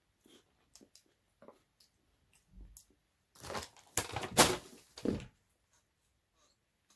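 Biting and crunching a big Carolina Reaper cheese puff: a cluster of crisp crunches about halfway through, lasting around two seconds, with a few soft clicks before it.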